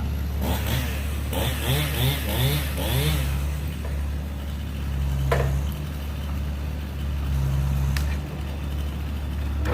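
Heavy land-clearing machine's engine running under load, revving up and down several times in the first few seconds, then steady, with two sharp cracks about five and eight seconds in as it works a pine tree over.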